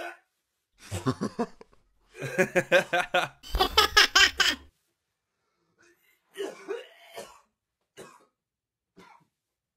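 A man gagging and dry-heaving in spasms at the stench while pulling hair out of a clogged shower drain, mixed with another man laughing hard. The strongest bout comes about two to four and a half seconds in; weaker heaves follow near the end.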